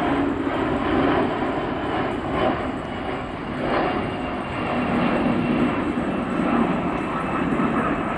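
Airbus A300-600 freighter's twin jet engines as it flies low overhead on landing approach with gear down: a steady, loud jet rumble that swells and eases slightly.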